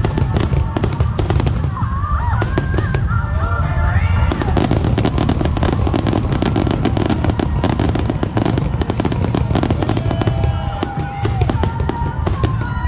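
Fireworks display: a dense, continuous barrage of aerial shell bursts and crackling over a deep rolling rumble, with no gaps between the bangs.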